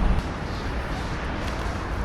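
Steady rushing noise of a coin car wash's high-pressure water spray; a louder rush drops off sharply just after the start, and a lower steady rush continues.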